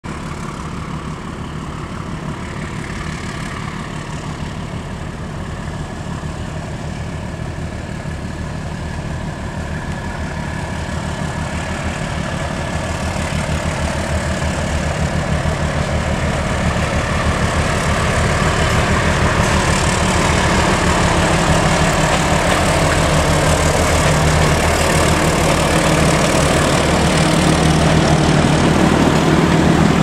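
D13E diesel-electric locomotive running with a steady low engine hum, growing gradually louder as it pulls the train closer.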